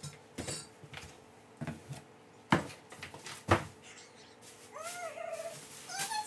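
Cardboard box and packing being handled, with scattered knocks, two of them sharp and loud about two and a half and three and a half seconds in. Near the end come a few short, wavering meow-like calls that rise and fall in pitch.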